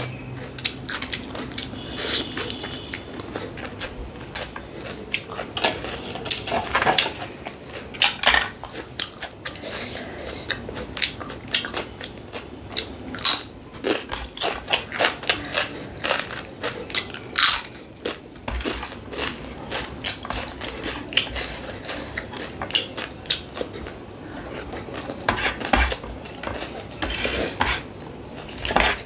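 Close-miked eating sounds: chewing and biting with many irregular wet clicks and smacks, mixed with scattered clinks of a plate or utensil.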